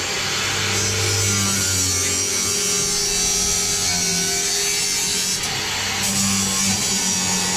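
Angle grinder running under load, its disc cutting steadily into the metal of a door with a continuous grinding whine.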